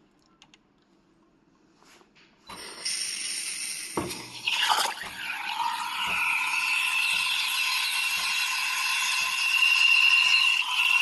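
Espresso machine starting up about two and a half seconds in, then running with a loud hiss and a steady high whine, with a faint tick about once a second.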